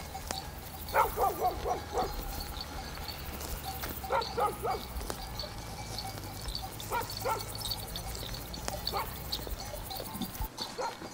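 An animal calling in short, sharp calls, in quick runs of four or five about a second in, four seconds in and seven seconds in, with single calls later.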